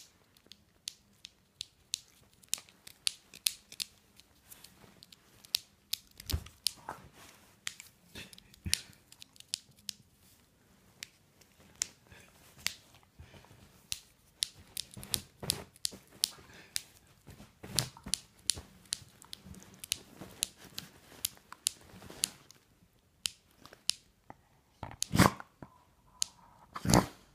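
Irregular sharp ticking clicks, several a second at times and sparser at others, with two louder knocks near the end.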